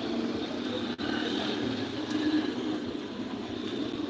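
Steady street noise with a vehicle-like running sound, broken by a very short dropout about a second in.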